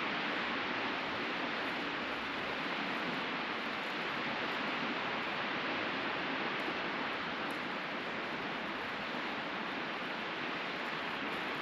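Steady, even wash of sea surf on a beach.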